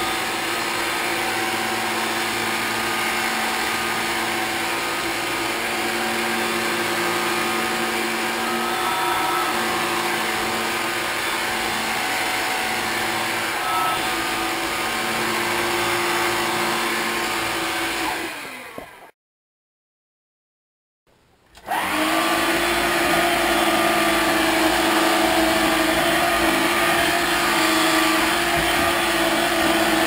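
Hoover Platinum cordless stick vacuum running steadily with a whining motor hum. It winds down and stops about 18 seconds in, and after about two seconds of silence it starts up again and runs on.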